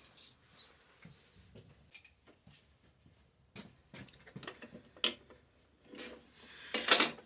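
Hands handling a McCulloch Pro Mac chainsaw, with irregular clicks, knocks and rubbing scrapes while it is checked for bar oil, and a louder scraping rush near the end.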